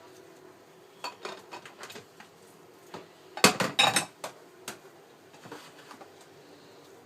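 Dishes and cutlery clinking and clattering as they are handled during washing up, with a loud burst of clatter in the middle and lighter clinks around it.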